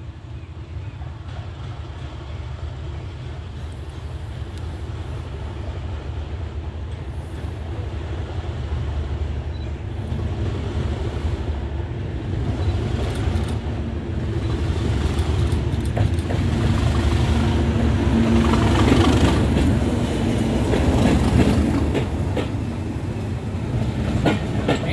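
A diesel locomotive hauling a passenger train, its engine growing steadily louder as it approaches and loudest as it passes close about three-quarters of the way through. Near the end the coaches' wheels click over the rail joints.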